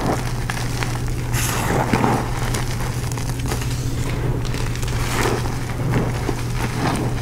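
Hands crushing and squeezing loose gym chalk powder and crumbled chalk block pieces: a continuous run of small crunches and crumbling, over a steady low hum.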